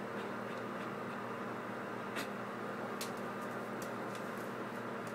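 Steady background hum and hiss with a few soft clicks, the plainest about two and three seconds in.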